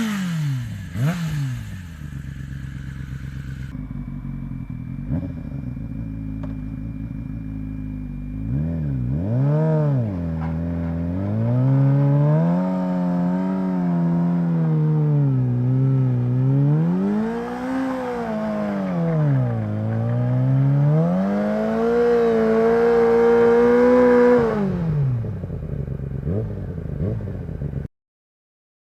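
Yamaha YZF-R6 inline-four engine through a LeoVince SBK exhaust: the revs fall back to a low speed, then are revved up and down in several swells before dropping again. The sound cuts off suddenly near the end.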